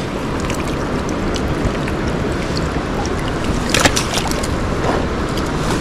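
Mountain stream water rushing steadily, with a couple of brief knocks about four seconds in.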